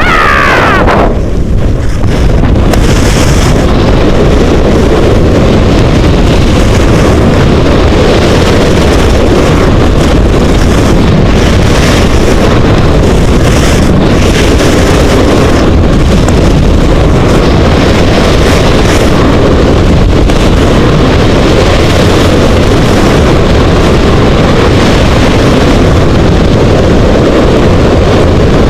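Wind buffeting the camera microphone during a ski descent in a blizzard: a loud, steady rushing roar.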